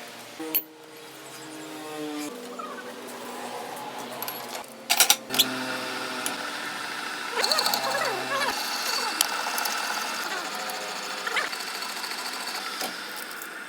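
Metal lathe running while it turns a steel pin, with a steady machine hum whose pitch shifts a few times. A quick run of sharp metallic knocks comes about five seconds in, and short squeals come a couple of seconds later.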